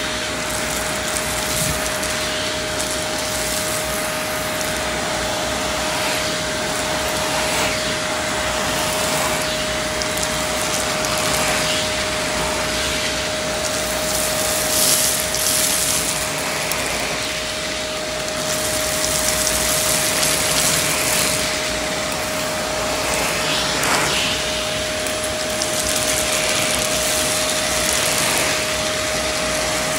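Vacuum cleaner running continuously through a narrow nozzle on carpet: a steady motor whine under rushing air hiss. The hiss swells now and then as the nozzle is pushed through the pile and pulls up cereal and crumbs, with a few brief rattles of debris going up the nozzle.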